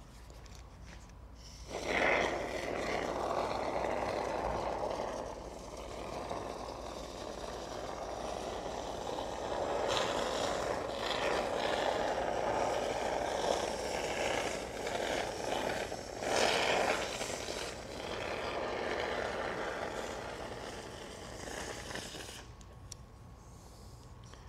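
Aerosol can of expanding spray foam hissing unevenly as foam is forced out through its straw nozzle, starting about two seconds in and stopping a couple of seconds before the end, with louder spurts near the start and again past the middle.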